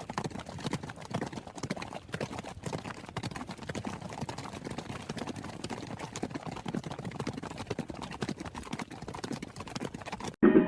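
Horse hooves clip-clopping in a quick, uneven clatter, cut off suddenly near the end.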